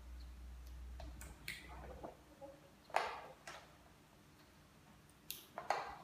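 Plastic solar-panel cable connectors and Y-branch connectors clicking and knocking as they are handled and pushed together: a handful of sharp separate clicks, the loudest about three seconds in.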